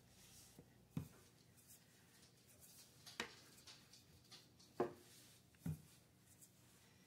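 Pie dough being rolled out with a wooden rolling pin on a counter: faint rubbing with four soft knocks spaced a second or two apart.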